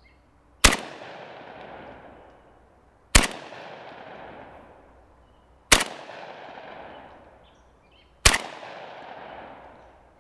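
Krebs Custom VEPR 12 semi-automatic 12-gauge short-barreled shotgun fired through a Silencer Co Salvo 12 suppressor in its 8-inch length. Four shots come about two and a half seconds apart, each a sharp report followed by a long fading echo, and a fifth lands at the very end. The suppressed shots are quiet for a 12-gauge.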